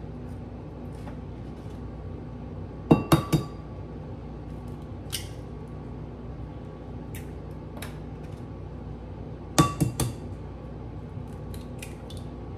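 Eggs being tapped against the rim of a bowl to crack them open: a quick run of three or four sharp knocks about three seconds in and another near ten seconds, with a few faint clicks of shell between.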